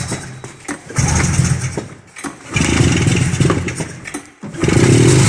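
Old Polaris snowmobile engine being pull-started by its recoil cord: a couple of pulls each turn it over with a short burst of engine noise, and near the end it catches and runs steadily and loudly.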